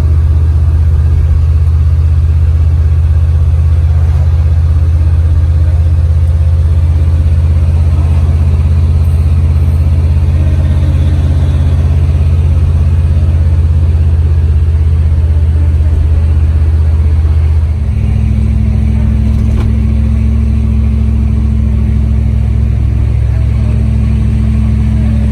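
Chrysler LA 318 V8 running under way in a car on the move, a loud steady low drone. About eighteen seconds in, the drone's tone changes abruptly and then holds steady again.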